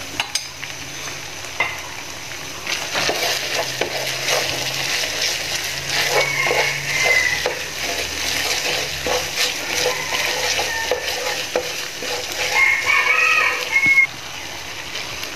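Minced pork sizzling in a frying pan, stirred and scraped round with a wooden spatula in short strokes while a tapioca-starch slurry cooks down and thickens the sauce.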